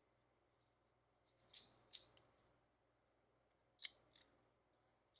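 A few light, sharp clicks from the exposed mechanism of a Conto adding machine being worked by hand: two about one and a half to two seconds in, a louder one near four seconds, then a faint one just after.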